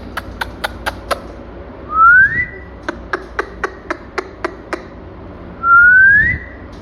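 Two rising whistles, each about half a second long, between two runs of sharp clicks at about four a second, made to call a pet parrot.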